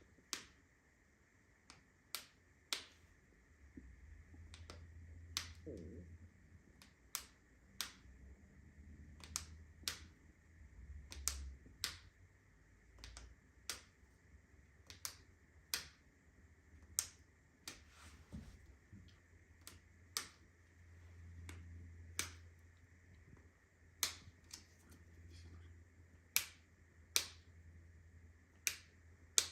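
Sharp clicks from an ankle joint, repeating unevenly about once a second.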